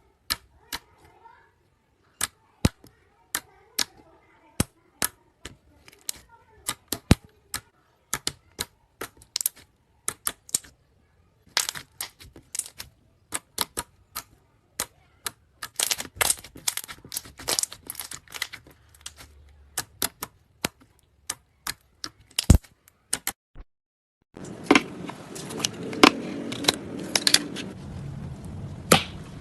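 Slime being pressed and stretched by hand, making sharp, irregular clicks and pops as air pockets burst. The clicks come thicker later on, and at about 24 s a hissier recording takes over with the clicking still going.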